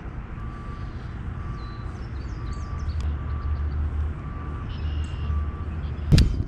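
A vehicle's reversing alarm beeping faintly at one steady pitch, about one half-second beep a second, six times, over a low rumble. A sharp knock near the end is the loudest sound.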